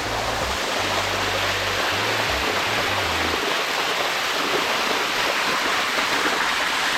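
Waterfall water rushing steadily over rock, with low bass tones underneath that stop about three seconds in.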